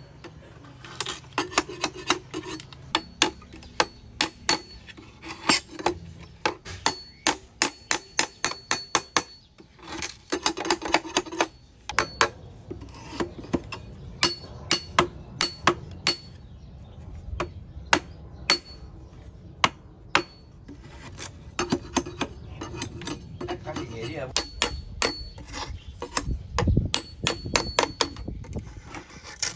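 Steel cleaver knocking thin bamboo pegs into the joints of a bamboo chair frame: quick runs of sharp knocks with short pauses between them, some with a brief metallic ring.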